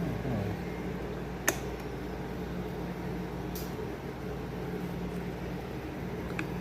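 A steady low mechanical hum, with one sharp click about one and a half seconds in and a couple of fainter ticks later.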